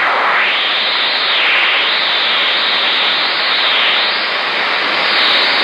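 Receiver static from a Magnum 257HP 10-meter mobile radio, with a whooshing interference that sweeps up and down in pitch over and over, about once a second. The operator likens it to a rotating radar transmitter sweeping by and cannot identify it.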